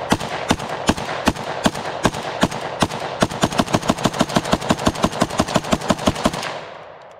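PSA-74 5.45x39 AK-74-pattern rifle firing a rapid semi-automatic string of about two dozen shots. The string speeds up to about five shots a second about three seconds in, then stops abruptly a little after six seconds in, leaving a fading echo.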